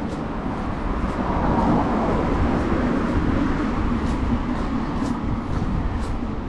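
City street traffic, with a vehicle passing close by: a steady rumble that swells about a second in and eases off toward the end.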